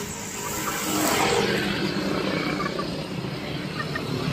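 A steady low motor hum, with a brief rush of hiss about a second in.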